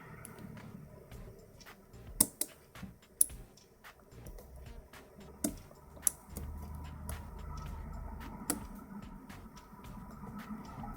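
Lock pick and tension wrench working the pins of a 6-pin lock: scattered small metallic clicks and ticks, a few of them sharper and louder, with some low handling rumble in the middle.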